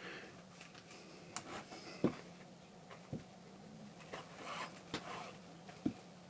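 Leather being hand-stitched: waxed thread rasps as it is drawn through the punched holes, with a few light clicks and taps of the needles against the leather.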